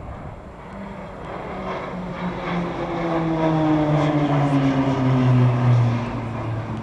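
Pilatus PC-9/A turboprop trainers flying past with a propeller drone. The sound grows louder and falls steadily in pitch as they pass, loudest about five to six seconds in.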